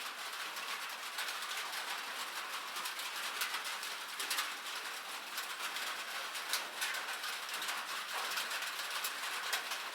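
Steady rain on a cabin roof: a constant hiss with many sharp, separate drop taps scattered through it.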